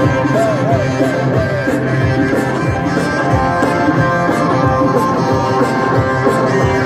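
Live rock band playing over a PA: electric guitar over a steady beat, with a wavering high note about half a second in.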